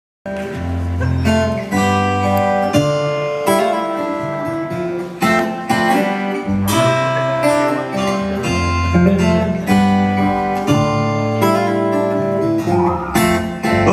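Live band playing a song's instrumental intro: strummed acoustic guitar chords over electric bass notes.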